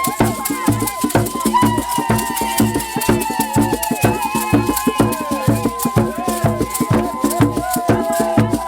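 Music with shaken rattles keeping a fast even rhythm over a steady low drum beat, with a held melody line above.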